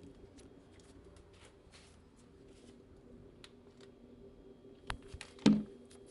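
Scattered small clicks and rustles over a faint steady hum, then two sharper knocks about five seconds in, the second the loudest.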